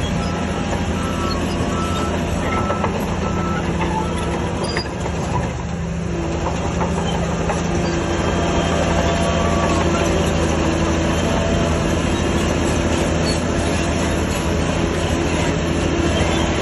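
Heavy diesel earthmoving machinery running: a steady engine drone under continuous metallic clanking and rattling, a little louder from about eight seconds in.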